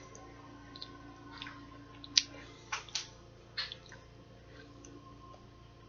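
A person chewing a crumbly ghost pepper chocolate bar, with a few short, sharp crunches and mouth clicks about two to four seconds in.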